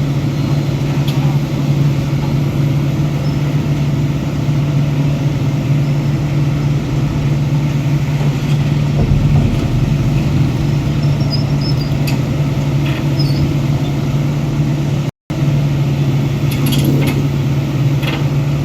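Heavy construction machinery's diesel engine running steadily with a deep, unbroken drone. A few faint clanks come through near the end.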